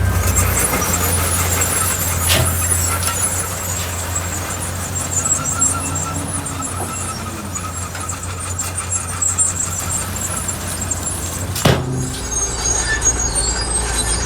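Heavy earthmoving machinery at work: a diesel engine running steadily with high, wavering metallic squealing over it, and two sharp clanks, one a couple of seconds in and one near the end.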